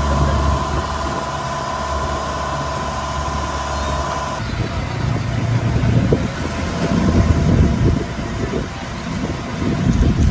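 Outrigger boat's engine running steadily, with steady tones, for about four seconds. Then the sound changes abruptly to an uneven low rumble that rises and falls.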